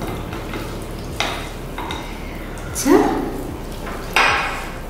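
Serving spoon scraping and stirring in a glass bowl of chicken curry, with the wet squish of hands mixing rice and curry on plates. Several short scrapes, the loudest about three and four seconds in.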